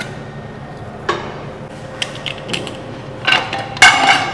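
Scattered clicks and clinks of kitchen utensils on cookware, a few light ones, then a louder cluster of sharp, slightly ringing clinks near the end.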